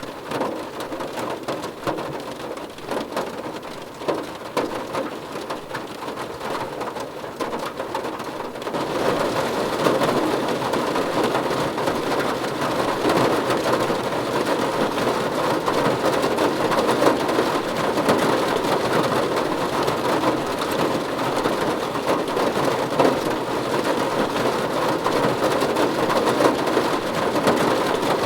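Rain falling on a car's roof and windows, heard from inside the car: a dense patter of drops that turns heavier and louder about nine seconds in.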